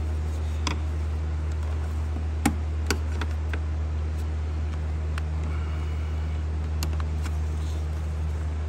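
Sharp plastic clicks and snaps of a door panel's brittle push-pin clips being pried loose with a screwdriver, about six times, the loudest about two and a half seconds in. A steady low hum runs underneath.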